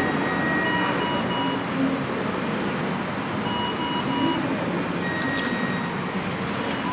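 Electronic fare gates beeping: a pair of short beeps about a second in and another pair about three and a half seconds in, over a steady hum of station noise. A couple of brief clicks follow near the end.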